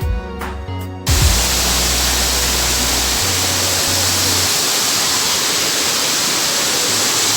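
Background music for about a second, then a loud, steady rushing noise that cuts in abruptly and holds even, with no surges.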